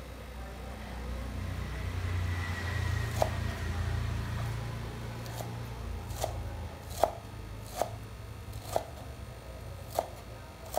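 Kitchen knife chopping leafy green herbs on a wooden cutting board: sharp knocks of the blade hitting the board, about one a second, starting about three seconds in. A low rumble runs underneath, strongest in the first half.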